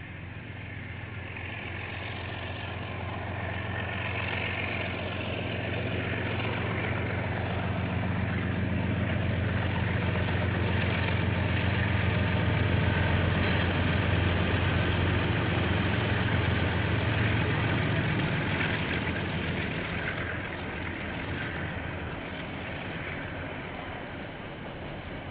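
KiwiRail diesel freight train approaching and passing. The locomotive's engine is a steady low drone that grows louder to a peak about halfway through, then eases off as the freight wagons roll by.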